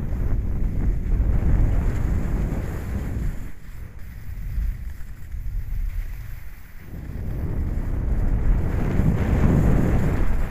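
Wind buffeting the microphone of a skier's camera while skiing downhill: a low rumbling rush, loud at first, easing for a few seconds in the middle, then building again near the end.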